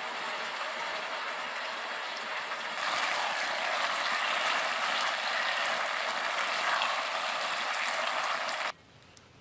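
Beef and pickled green mustard sizzling in a wok as a spatula stirs them, a steady hiss. It gets louder about three seconds in and stops abruptly near the end.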